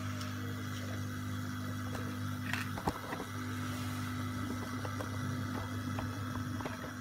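Steady low hum, with a brief knock and a few light clicks about three seconds in from a nonstick frying pan set down on a gas stove's metal grate.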